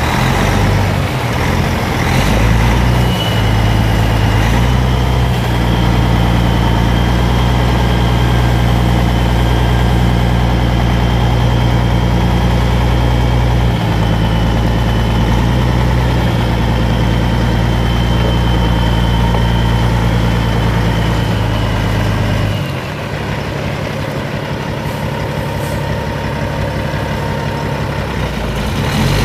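Caterpillar C15 Acert 15.2 L inline-six turbo diesel of a Peterbilt 388 semi idling steadily, with a thin high whine above the engine note. About three-quarters of the way through, the sound drops slightly and becomes thinner.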